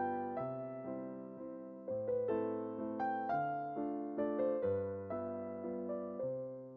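Background music: a gentle piano piece, notes and chords struck one after another and left to ring and fade.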